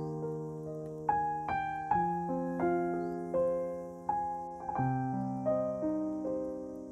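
Background piano music: a slow melody of struck notes, each fading, over held lower notes.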